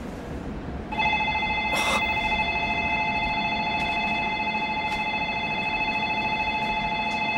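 Electronic departure bell on a train station platform ringing steadily, starting about a second in, with a short rush of noise just after it begins. It is the signal that the train's doors are about to close.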